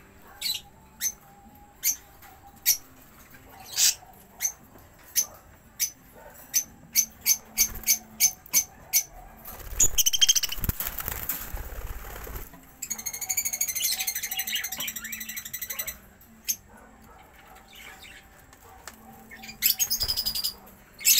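Budgerigars and lovebirds giving many short, sharp chirps at irregular intervals, with a loud rustling flurry about ten seconds in and a few seconds of warbling chatter after it.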